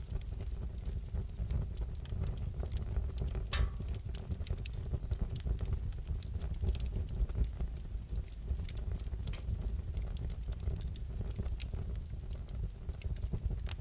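Wood fire in a fireplace crackling, with scattered sharp pops over a low steady rumble, and a short whistling hiss from the burning wood about three and a half seconds in.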